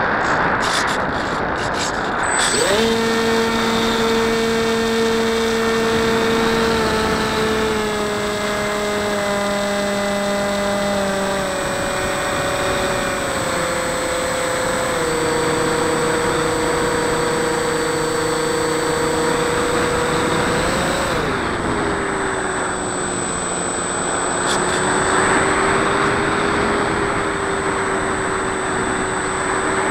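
Onboard sound of a Dynam Hawk Sky electric RC plane in flight, with heavy wind rush. About two seconds in, the Turnigy 2210 brushless motor and 6x4 propeller come in with a droning buzz and a thin, steady high whine. The pitch sags slowly, then about two-thirds through it briefly rises and drops to a lower, steady pitch.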